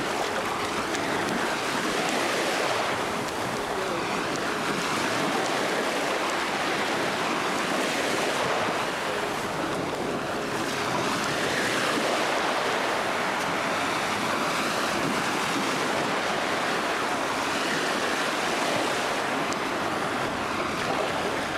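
Small waves washing onto a sandy beach, a steady hiss of surf that swells and eases gently.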